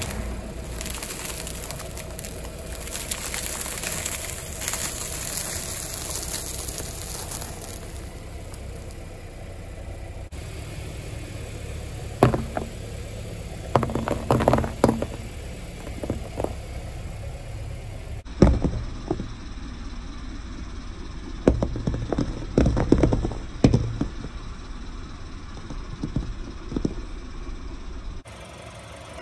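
Car engine running slowly as a tyre rolls over and crushes objects, giving clusters of sharp cracks and crunches several times over, in short separate clips.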